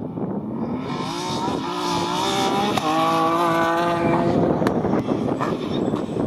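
BMW 3 Series rally car's engine accelerating hard. Its pitch climbs through the gears, with two quick upshifts, then fades, and a few sharp cracks follow.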